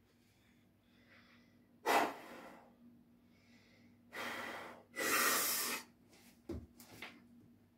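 A lifter's forceful breaths, three loud rushes of air, the third the longest, taken while bracing with dumbbells at the shoulders before a seated press. Two short knocks follow near the end.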